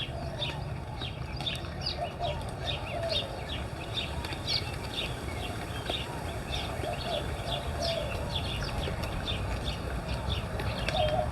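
Many birds chirping together: short high calls several times a second throughout, with lower warbling calls now and then, over a steady low rumble.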